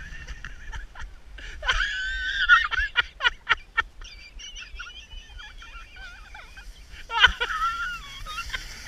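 Children squealing and laughing with excitement as they set off sledding: a long high squeal about two seconds in, quick bursts of laughter just after, and another shriek near the end.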